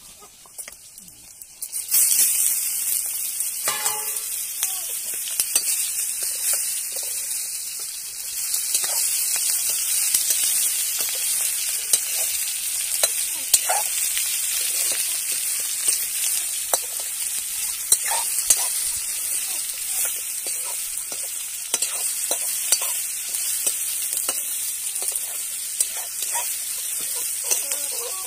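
Raw chicken pieces frying in hot oil in a steel kadai: a loud sizzle starts suddenly about two seconds in as the meat hits the oil and keeps going. A steel ladle scrapes and clicks against the pan over and over as the pieces are stirred.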